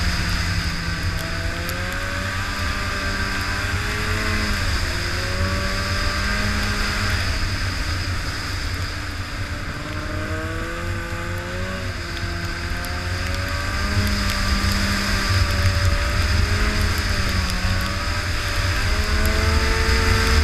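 Arctic Cat Firecat F6 snowmobile's two-stroke twin engine running at speed, its pitch rising and falling repeatedly with the throttle over a heavy low rumble.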